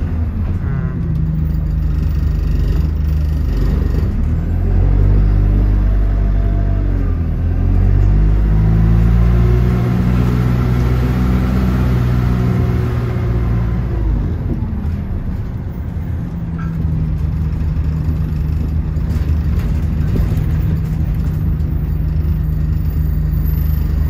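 Bus engine heard from on board, its note rising and falling twice as it accelerates through the gears, then settling to a steady, lower hum about two-thirds of the way in.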